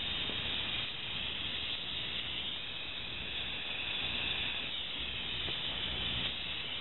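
MAP gas hand torch burning with a steady hiss, its flame heating a lead battery post to melt lead onto it.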